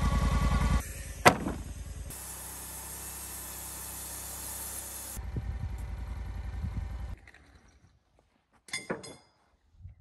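Portable band sawmill's engine running with a steady low pulse, heard in short clips cut one after another, with a sharp knock a little over a second in. About seven seconds in it drops away to near quiet.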